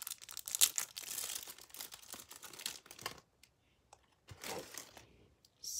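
Crinkling of a small clear plastic wrapper handled by hand, in short crackles over the first three seconds, then a brief crinkle a little after four seconds.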